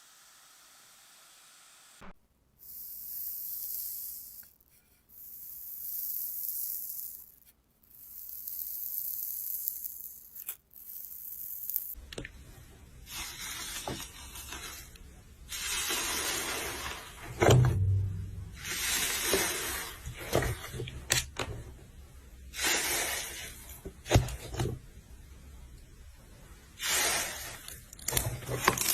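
Three separate hisses of about two seconds each, then from about twelve seconds in a run of rough scraping strokes with a few sharp clicks.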